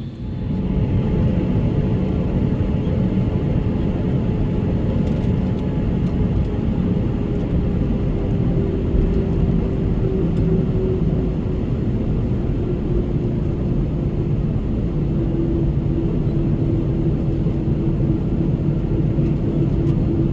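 Steady loud noise of a jet airliner, an Airbus A319, running: an even rush with a low hum and a higher tone that slowly drops in pitch. It comes in suddenly at the start.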